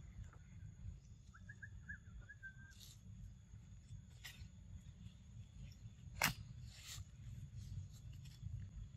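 Quiet outdoor ambience with a low rumble: a short run of quick high chirps about a second in, then a few sharp clicks or snaps, the loudest about six seconds in.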